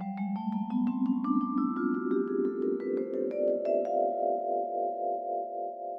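Intro music on a mallet instrument: a quick rising run of struck notes, about four a second, then a held chord that rings on with an even pulsing and slowly fades.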